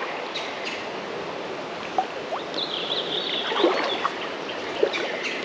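Steady wash of a high, fast-flowing creek, swollen and muddy after rain. A high chirping call comes about halfway through, and three short sharp clicks stand out above the water.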